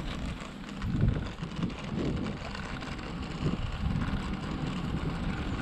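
Wind buffeting the microphone of a camera on a moving bicycle: uneven low rumbling gusts over a steady hiss.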